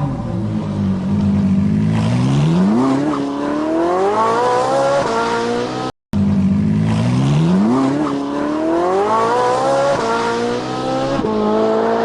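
Vehicle engine revving up, its pitch climbing steadily over several seconds. It cuts out briefly about halfway through and the same rising run plays again.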